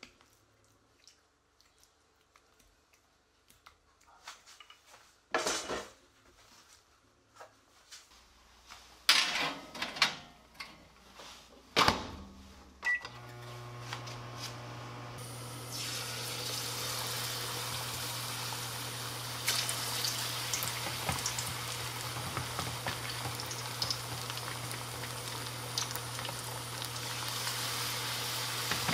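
A few sharp knocks and clatters of the tray and utensils while barbecue sauce is brushed onto the ribs, the loudest about twelve seconds in. Then an electric oven running with a steady low hum, joined a couple of seconds later by a steady hiss.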